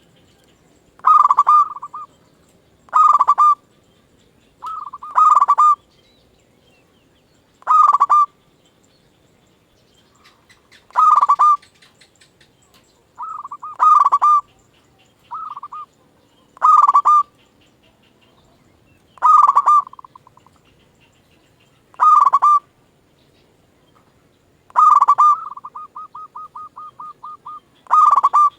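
Zebra dove (perkutut) singing: short cooing phrases repeated every two to three seconds, with a run of quick repeated notes near the end.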